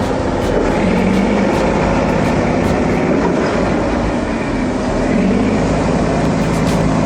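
Steady, loud mechanical running noise with a low hum, from a vehicle or machine.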